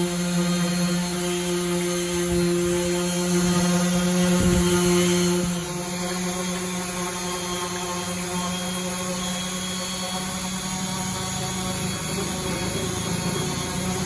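Makita M9202M electric orbital sander running with a steady motor hum; about six seconds in, its tone changes and it gets slightly quieter.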